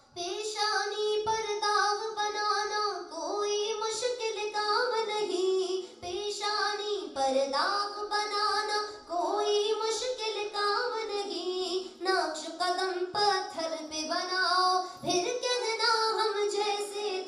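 A woman singing an Urdu naat solo into a microphone, without instruments, in long, ornamented melodic phrases.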